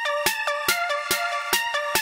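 Electronic background music: a steady beat of a little over two hits a second under sustained synth chords that change every half second or so.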